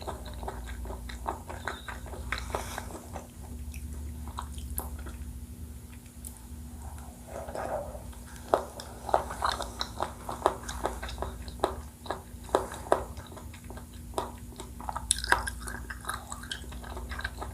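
Close-miked chewing of a Thai coconut-milk dessert: a run of wet mouth clicks and smacks, louder and sharper from about halfway through, over a steady low hum.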